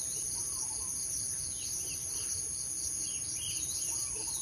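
Steady high-pitched chorus of insects in woodland, with faint scattered bird chirps over it.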